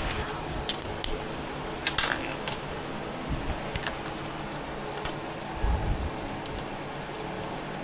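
Metal hand tools, a socket among them, clinking and clicking several times, with a couple of dull knocks about six seconds in, over a steady fan hum.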